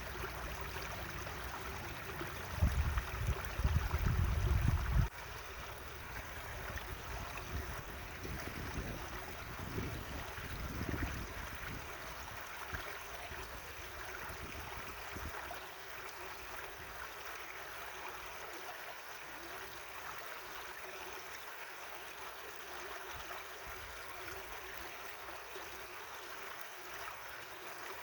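Natural stream of running water, a steady babbling flow. Louder low rumbles come in for a couple of seconds near the start and again about ten seconds in.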